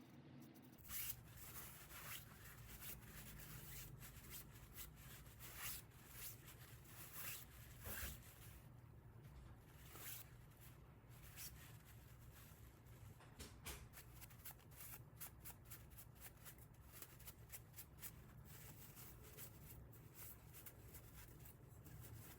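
Faint, irregular scratching and light ticking of small hand work, over a steady low hum.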